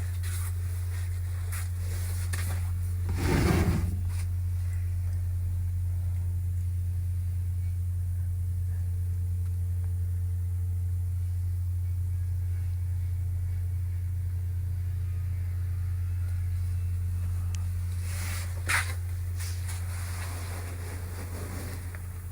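A steady low hum throughout, with a short loud thump about three and a half seconds in and a brief sharp knock near the end.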